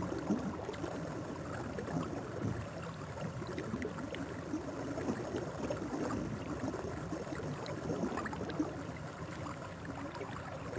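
Faint, steady water sound of the hot-spring pool, with a few soft ticks.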